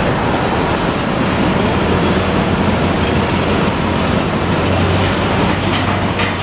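Steady rumble of road traffic and heavy demolition machinery working, with a constant low hum underneath.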